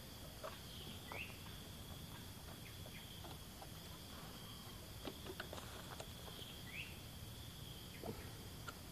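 Faint steady drone of insects on one high note, with two short rising bird chirps. Scattered light clicks and rustles toward the end as a rattan basket is set down on gravelly ground.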